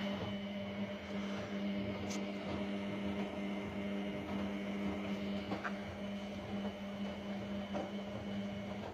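Teka TK2 1070 washing machine humming steadily with an electric, motor-like tone that cuts off suddenly near the end.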